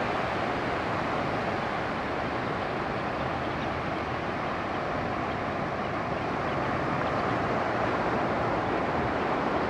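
Steady wash of small waves breaking and running up a flat sandy beach, a continuous even hiss.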